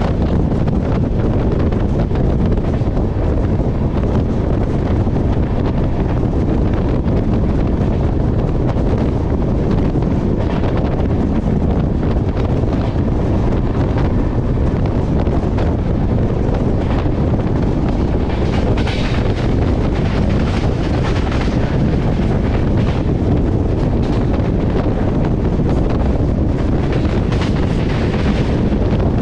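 Heavy wind noise on the microphone over the steady running rumble of a moving train.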